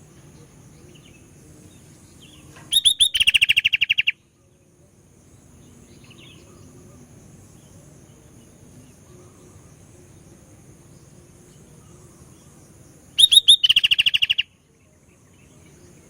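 Sooty-headed bulbul (kutilang) singing a short phrase twice, about ten seconds apart: a few sharp high notes, then a fast trill of about a second. A steady high insect-like drone continues between phrases.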